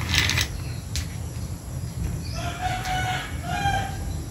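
A rooster crowing once, starting a little past halfway and lasting about a second and a half, in two parts. A short rustle of rope being handled comes at the very start.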